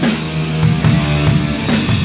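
Rock band playing, with drum kit and distorted guitar over sustained low notes and drum hits.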